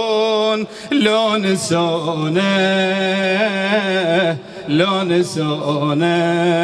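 A man's voice chanting an Arabic elegy refrain in long, wavering held notes. The phrases break briefly for breath about a second in and again about two-thirds of the way through.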